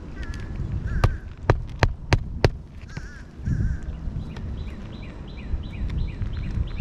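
Crows cawing several times against a low wind rumble on the microphone, while five sharp knocks land in quick succession about a second to two and a half seconds in. Near the end comes a run of quick, high, falling chirps.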